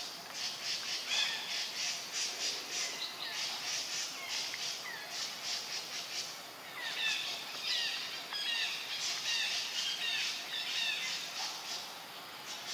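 Birds chirping: high calls repeated about three to four times a second, joined from about seven seconds in by short sliding notes, then thinning out near the end.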